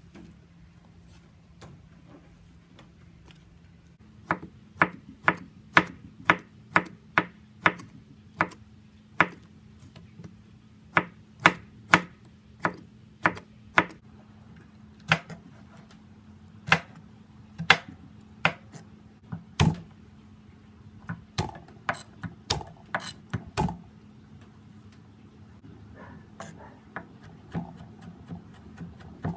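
A kitchen knife chops on a plastic cutting board, cutting red chilies and garlic. After a few quiet seconds come sharp single knocks, about one or two a second. Near the end they turn into quicker, lighter chopping as the garlic is minced.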